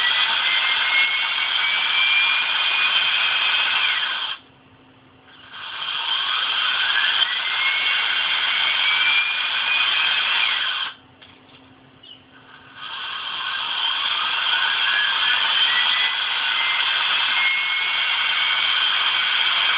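Cordless drill motor, powered by a laptop charger cable wired to its battery terminals, spinning up three times with a whine that rises in pitch as it gains speed. The first two runs cut out suddenly, about four and eleven seconds in, and the third levels off near the end.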